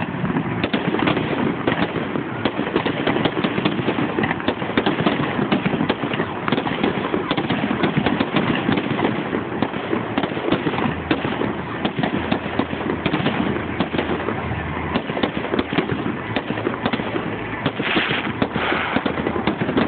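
Fireworks display in full flow: a dense, continuous barrage of firework bangs and crackling with no let-up, heard through a phone's microphone.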